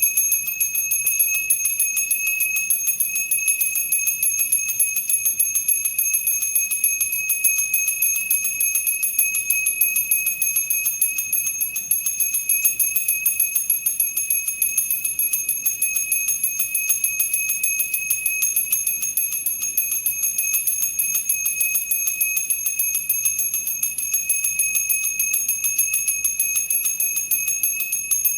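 Temple bell rung rapidly and without pause, a steady high ringing with many quick strikes a second.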